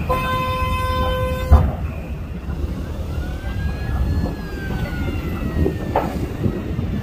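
A vehicle horn sounds steadily for about a second and a half, ending in a sharp thump, then a distant emergency siren wails, rising and falling in pitch. A heavy low rumble runs underneath throughout.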